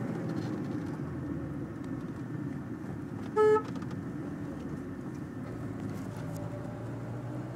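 Steady road and engine noise heard inside a moving car's cabin, broken about three and a half seconds in by one short car horn toot.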